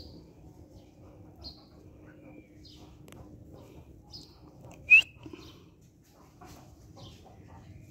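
Small birds chirping in short high notes every second or so, over a faint steady hum. About five seconds in comes a single sharp squeak, the loudest sound.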